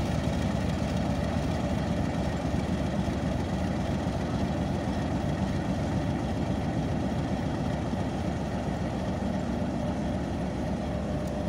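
Pakistan Railways HBU-20 diesel-electric locomotive's engine idling with a steady low rumble while the locomotive is turned on a hand-pushed turntable.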